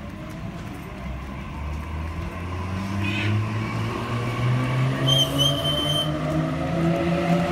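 Sydney Trains B-set (Waratah Series 2) double-deck electric train slowing as it pulls into the platform, its traction motors whining in a stack of tones that climb in steps while the sound grows louder. A short high tone sounds about five seconds in.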